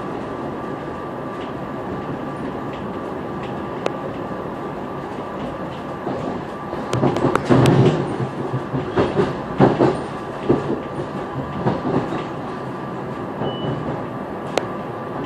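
A SEPTA Silverliner V electric multiple-unit railcar running, heard from inside the passenger car: a steady rumble with a faint steady whine. From about halfway through there are some five seconds of louder, irregular clatter and knocks from the wheels on the track.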